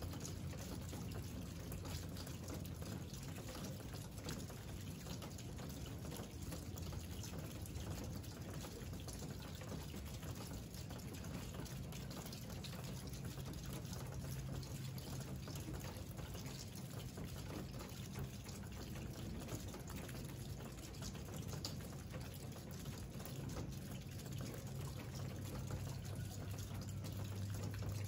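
Steady rain falling: an even hiss with a patter of separate drops and a low rumble underneath.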